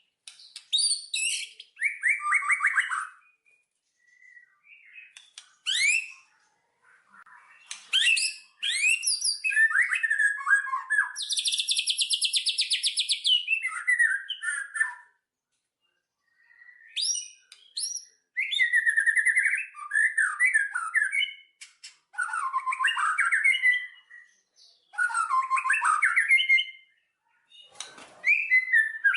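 Songbirds chirping and singing in short phrases of quick rising and falling notes, with a long rapid trill near the middle and brief silent pauses between phrases.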